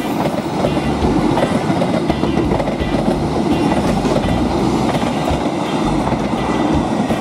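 Economy-class passenger coaches rolling past close by, a steady loud rumble with the wheels clattering over the rail joints.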